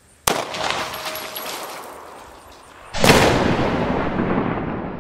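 A single 9mm gunshot: a sharp crack with a tail that fades over about two seconds. About three seconds in, a louder, longer rush of noise starts and fades slowly.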